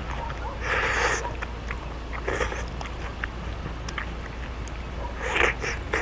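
Eating sounds close to the microphone: chewing, with a few short breathy bursts about a second in, midway, and a pair near the end, and small clicks between them, over a steady low hum.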